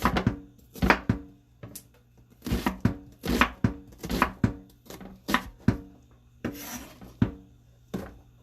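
Knife chopping vegetables on a cutting board in irregular strokes, with a brief scrape about six and a half seconds in.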